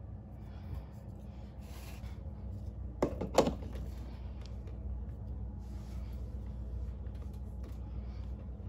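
Stainless-steel portafilter knocking against the group head of a De'Longhi Stilosa espresso machine as it is fitted, two sharp clacks about three seconds in, followed by faint rubbing as it is twisted to lock.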